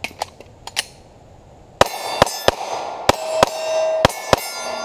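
Rapid fire from a 9mm Glock Gen 5 pistol, sharp shots every third to half second starting about two seconds in, over music with held ringing tones. A few light clicks come before the first shot.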